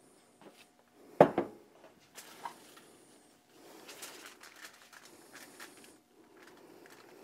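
A single sharp knock about a second in, then gloved hands spreading sauce and patting down a rack of pork spare ribs on aluminium foil: soft rubbing and crinkling of the foil in stretches.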